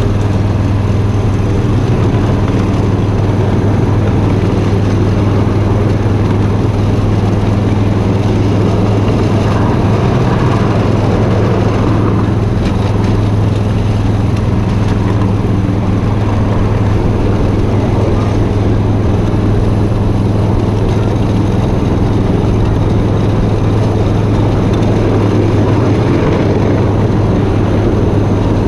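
Ride-on miniature train running steadily along its track: a constant low drone from the locomotive with the rumble of the cars rolling on the rails.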